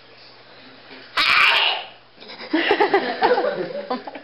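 A single loud human sneeze about a second in, lasting under a second, followed by a burst of laughter.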